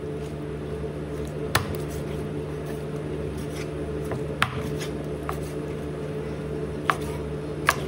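Chef's knife chopping raw chicken on a plastic cutting board: a few sharp knocks of the blade striking the board, a second or more apart, over a steady low hum.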